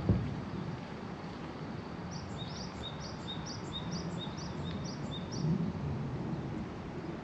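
A small songbird repeats a short high two-note phrase about eight times, over steady low outdoor background noise with a soft thump right at the start.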